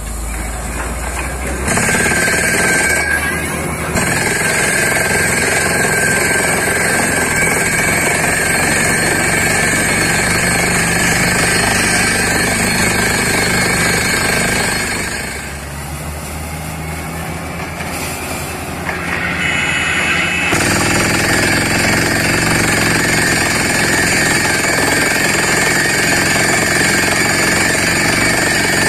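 Borewell drilling rig drilling with its air-driven down-the-hole hammer, a loud, rapid, steady hammering mixed with rushing air. It eases off for about five seconds a little past halfway, then picks up again at full strength.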